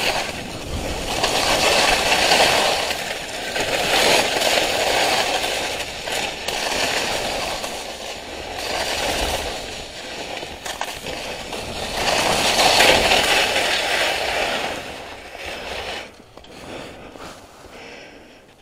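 Skis scraping and hissing over packed snow through a series of turns. The noise swells with each turn, about every two to three seconds, and drops away after about sixteen seconds.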